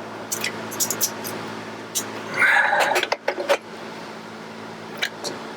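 Metal tools and bolts clinking and knocking in a boat's engine compartment while a new starter motor is fitted, with a louder scraping sound about two and a half seconds in, over a steady low hum.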